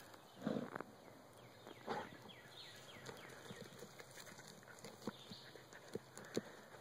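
Dogs digging in loose soil and leaf litter: paws scraping and flicking dirt, with two louder rushes about half a second and two seconds in, then many short scratching ticks.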